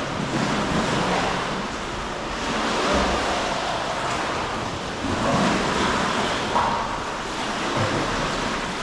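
Sea water surging and washing against the rock walls of a narrow sea cave: a continuous rush that swells and eases every two seconds or so.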